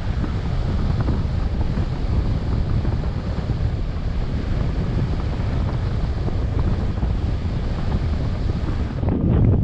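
Wind rushing over the microphone of a paraglider pilot's camera in flight: a steady low rumble. Near the end it turns louder and more muffled.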